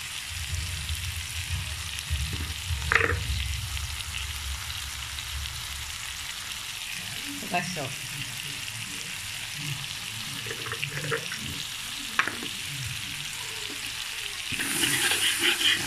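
Pounded chili and belacan paste sizzling in hot oil in a metal wok, a steady frying hiss as the paste is sautéed until well cooked. The sizzle grows louder about a second and a half before the end.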